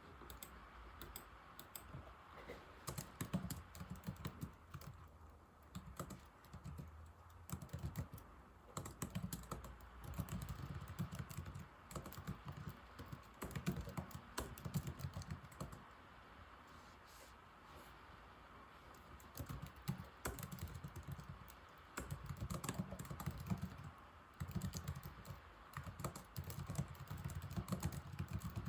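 Typing on an old laptop keyboard: quick runs of key clicks in bursts, with a pause of several seconds past the middle.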